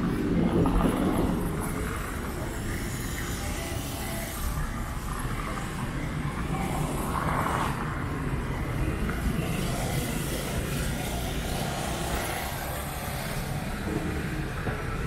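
Road traffic on a town street: a vehicle's engine passes close in the first second or so, then a steady rumble of traffic.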